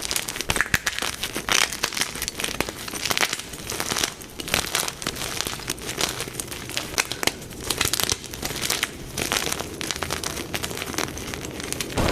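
Blocks of plain gym chalk being crushed and crumbled: a dense, irregular run of dry crackles and crunches.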